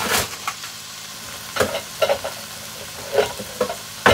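Onions, carrots and potatoes sizzling in oil in a pan, a steady frying hiss. Several short clinks and knocks of dishes are heard as a bowl is taken from a kitchen cabinet.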